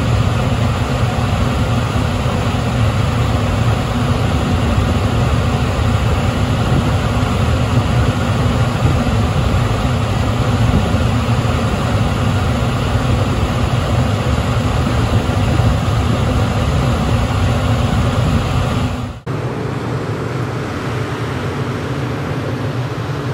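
Heat Wagon 1800B direct-fired gas heater running at full fire: its blower fan and burner flame make a loud, steady rushing noise with a deep rumble. About 19 seconds in the sound drops suddenly and goes on at a lower level.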